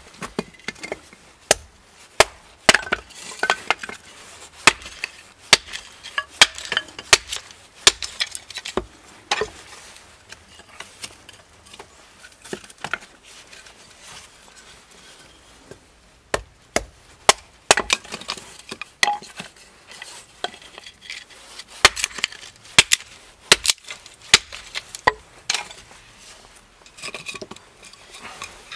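Hatchet splitting thin kindling sticks from a wooden board on a chopping stump: a run of sharp, irregular wooden chops and cracks, with a quieter spell of fewer strikes in the middle.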